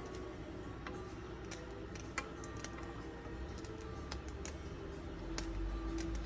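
Scattered light clicks and taps of small hard objects over a steady low hum; a low rumble grows near the end.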